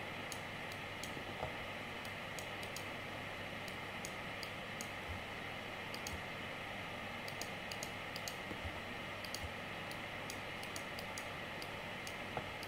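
Light, irregular clicks of a computer mouse, some in quick pairs, over a steady faint hiss and low hum.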